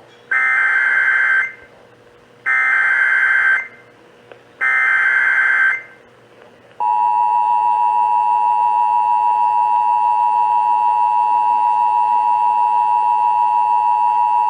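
Emergency Alert System signal: three short bursts of the shrill, warbling SAME digital header, each about a second long, followed about seven seconds in by the long, steady two-tone attention signal.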